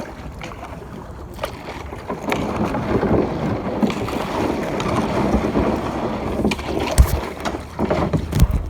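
Water splashing and sloshing around a kayak as it is paddled, swelling in the middle, with a couple of sharp knocks near the end.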